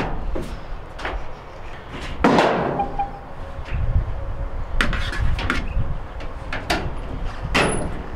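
Whirlpool electric dryer running with a low rumble and irregular sharp knocks and clatter, louder about two seconds in. This is the grinding noise of debris that fell down the lint screen into the blower wheel.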